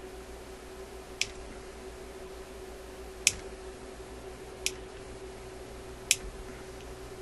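Small hand pliers clicking shut on wiring four times, each a short, sharp click, over a steady hum.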